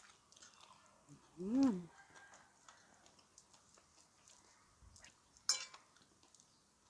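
Cutlery tapping and scraping lightly on a plate while eating, with a sharp ringing clink a little past five seconds in. A brief 'mm' of enjoyment is hummed about a second and a half in.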